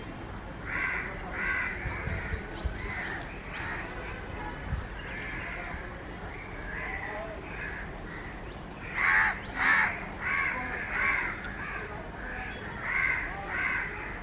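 Crows cawing in short harsh calls: a few about a second in, a louder run of four or five between about nine and eleven seconds in, and two more near the end.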